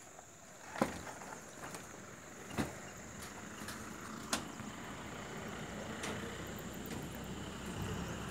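Outdoor ambience: a steady high, thin chirring tone with a few sharp clicks, and a low rumble that builds through the second half.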